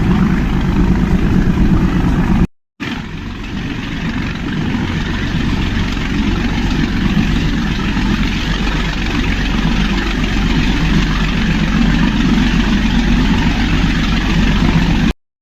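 Steady running rumble of the Nilgiri mountain toy train in motion. It is a continuous noisy din of engine and wheels that cuts out briefly about two and a half seconds in.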